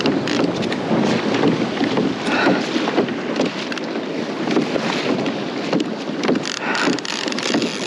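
Wind buffeting the microphone on a small boat at sea, a steady rushing with many short uneven crackles.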